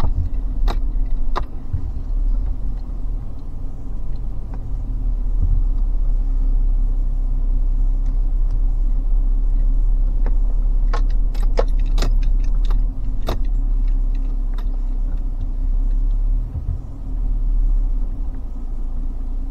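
A vehicle driving slowly along a grassy dirt track: a steady low engine and road rumble with a constant hum, and scattered sharp clicks and rattles, a few near the start and a cluster a little past the middle.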